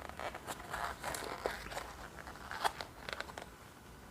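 A small accessory box being opened by hand: packaging crinkling and rustling, with scattered light clicks and taps.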